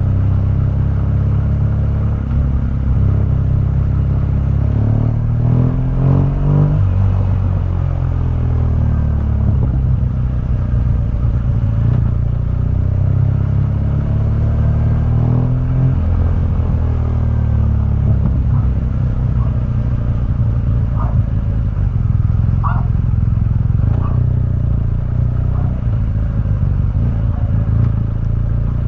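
2015 BMW R1200GS boxer twin through its stock exhaust while riding, the engine note rising and falling with throttle and gear changes, with two clear sweeps through the revs.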